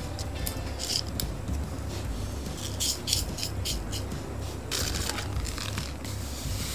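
Coloured craft sand spooned from a metal spoon onto a sticky sand-art board: scattered soft scrapes and rustles of sand, with a longer rush of sliding sand about five seconds in as the board is tipped.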